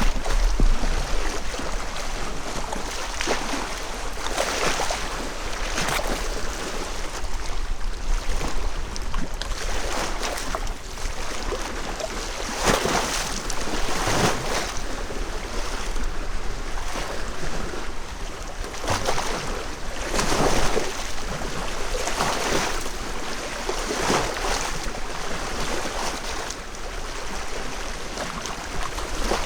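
Small lake waves lapping and splashing against shoreline stones, each wave a brief splash every one to few seconds, over a low rumble of wind on the microphone.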